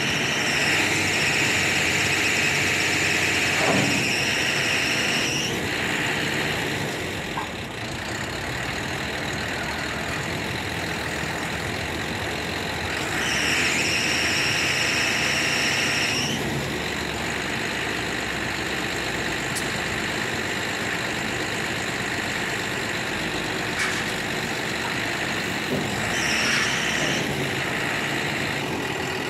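Diesel engine of an Escorts TRX 2319 pick-and-carry crane running steadily. A high hissing whine comes in three times, for a few seconds each: near the start, about halfway through, and near the end.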